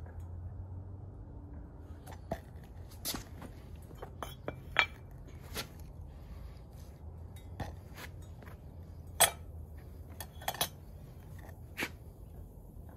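Sharp metallic clinks and knocks, about a dozen at uneven intervals, from steel ingot molds and crucible tongs being handled and set down between pours of molten metal, over a low steady rumble.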